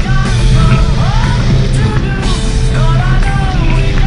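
Rock music with a steady low bass line and gliding melodic lines.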